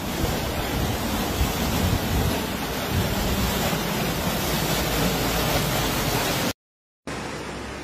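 Floodwater rushing down a street and surging up out of a storm drain: a loud, steady rush of water, with wind rumbling on the microphone. It cuts off suddenly about six and a half seconds in, and after a short gap a quieter rush of water follows.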